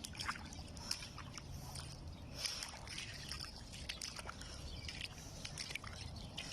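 Shallow seawater lapping and trickling at the water's edge: many small irregular splashes and clicks over a steady low rumble.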